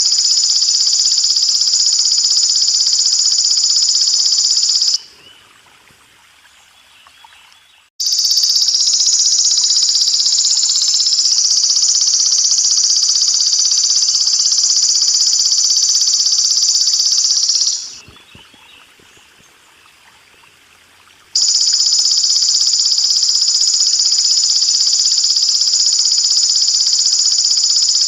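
Belalang emas (golden grasshopper) calling in three long, steady, high-pitched buzzes separated by pauses of about three seconds. A faint trickle of water runs underneath and can be heard in the pauses.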